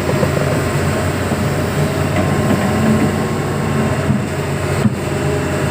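Diesel engine of a Hitachi 210 excavator running steadily.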